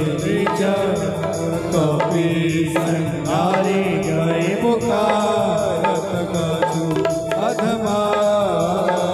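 Devotional bhajan music: tabla and dholak playing a steady rhythm under held Roland Juno keyboard chords, with a gliding melody line over them.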